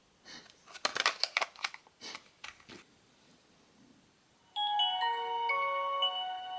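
A few handling clicks and knocks, then about four and a half seconds in a Nokia phone plays its startup jingle, a short melody of chiming notes that fades near the end.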